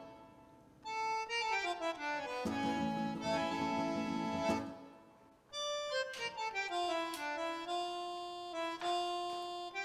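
Background music: a lively accordion tune played in quick runs of notes, which breaks off briefly twice.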